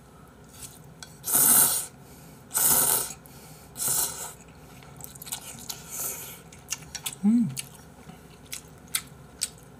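Instant ramen noodles slurped off chopsticks in three long slurps during the first half and a fainter one about six seconds in. Then chewing with small wet clicks, and a short hummed "mm".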